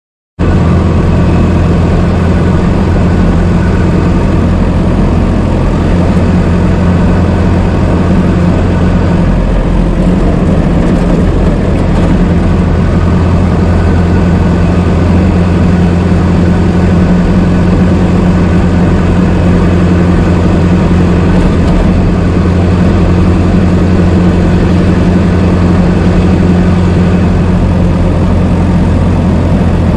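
Old car engine running steadily at an even, low idle, cutting in abruptly just after the start.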